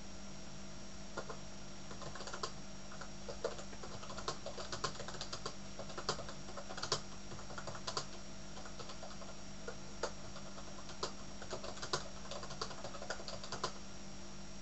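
Typing on a computer keyboard: irregular runs of keystroke clicks with a brief pause a little past the middle, over a steady background hum.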